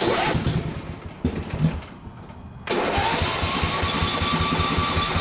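Craftsman riding lawn mower engine being started: the starter cranks it over unevenly, the engine catches a little under three seconds in, and then it runs steadily.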